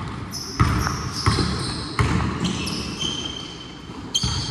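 A basketball bouncing on a hardwood gym floor a few times, with sneakers squeaking in short high chirps during play.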